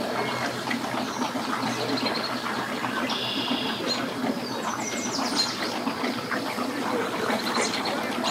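Outboard motors running at low speed and churning water as bass boats manoeuvre, with birds chirping over them.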